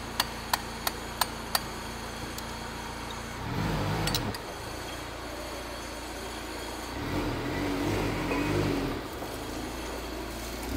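Sharp metallic clicks, about three a second, from hand-tool work on a Volkswagen Polo 6N's water pump and belt tensioner, stopping about two seconds in. A low rumbling noise follows and swells twice.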